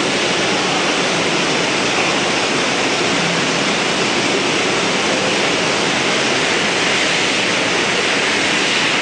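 KUKA robot milling cell running: a steady, loud rushing hiss from the spindle and cutting, with no change in pitch.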